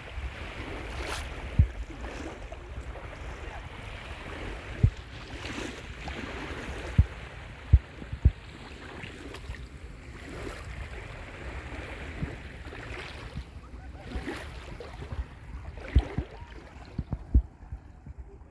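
Small waves washing onto a sandy shore, a steady soft surf. Sharp low thumps on the microphone, about a dozen in all, stand out above it at irregular moments.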